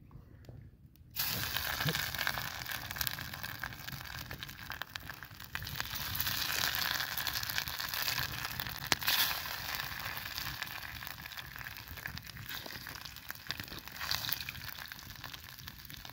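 Pieces of fish sizzling in hot oil in a pan over a wood fire. The sizzle starts suddenly about a second in as the first piece goes into the oil, then runs on steadily with scattered sharp pops and crackles.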